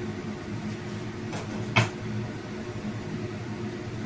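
Two sharp clinks of cookware, about one and a half and two seconds in, the second louder, as a glass lid is brought to cover a simmering frying pan, over a steady low hum.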